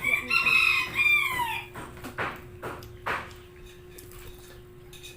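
A rooster crowing once, a call of about a second and a half that drops in pitch at the end, followed by a few short sharp sounds.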